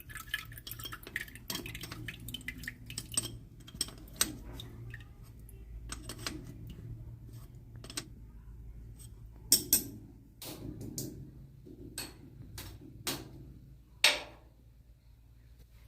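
Metal objects handled with irregular clinks and clatters, over a faint low steady hum. The loudest knocks come about two thirds of the way in and again near the end.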